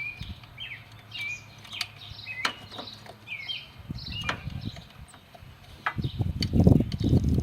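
Small birds chirping over and over in short falling notes, with a few sharp clicks. About six seconds in, a louder low rustling noise sets in.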